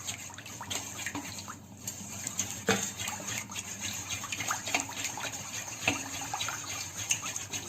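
A thin marinade liquid of buttermilk, egg and milk being mixed in a bowl: soft sloshing with scattered light clicks of the utensil against the bowl.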